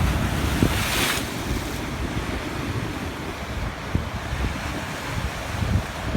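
Sea surf washing on the shore, with strong wind buffeting the microphone in gusty low rumbles. About a second in, a brief brighter hiss of surf rises and falls away.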